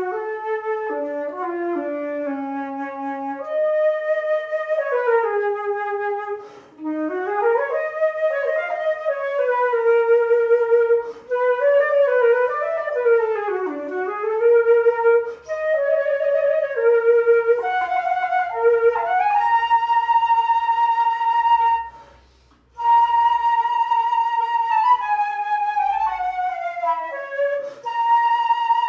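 A flute-toned melody is played, mostly in two parts, with a held lower note under a moving upper line and smooth slides in pitch. It breaks off briefly a few times, with the longest gap about two-thirds of the way through.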